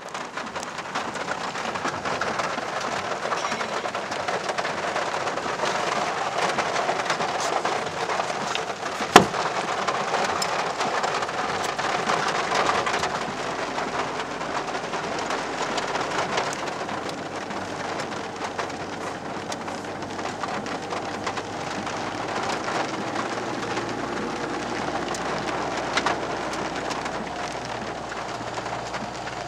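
Rain on the windscreen and roof of a 4WD, heard from inside the cab while it drives, with a steady low vehicle rumble beneath. There is a single sharp knock about nine seconds in and a smaller one near the end.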